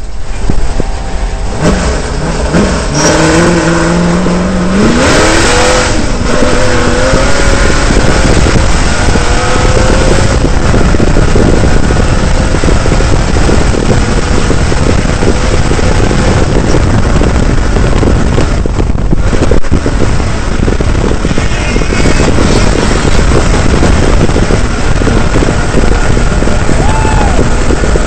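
Prerunner truck's engine revving hard as the truck drives fast over sand, the pitch climbing in steps through the first several seconds. After that it holds at high speed under heavy wind and driving noise on the in-car microphone.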